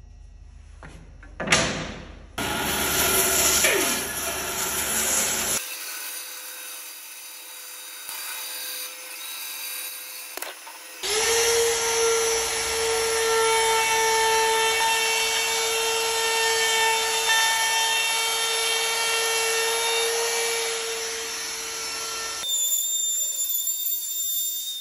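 DeWalt compact router running with a steady high whine as it flush-trims a curved apron along its template, from about halfway through. Before it, a few seconds of loud, rough cutting noise and then a quieter stretch of shop noise.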